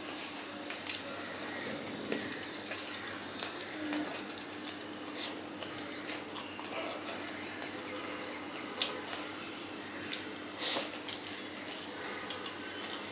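Hand mixing and squishing wet rice with taro-leaf greens (kochur shak) on a steel plate: soft wet squelching and scattered clicks of fingers against the plate, with eating sounds. The sharpest clicks come about a second in and twice in the last third.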